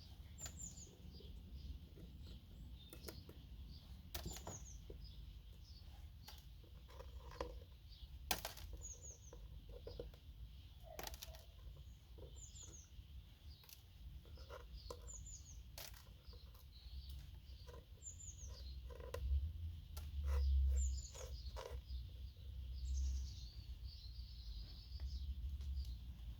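Scattered clicks and knocks of RAM slots being broken off motherboards, with bits of plastic snapping away. A small bird chirps over it, a short falling note every two or three seconds.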